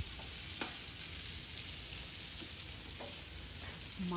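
Food frying in a pan: a steady sizzle with a few faint clicks.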